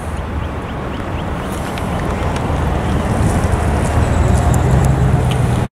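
Strong storm wind buffeting the microphone: a steady rushing with a heavy low rumble that grows louder toward the end. A low steady hum joins about four seconds in, and the sound cuts off abruptly at the end.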